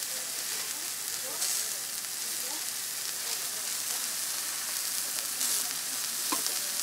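Two handmade hamburger patties sizzling on a hot flat-top griddle, a steady hiss of frying meat. There is one light knock near the end.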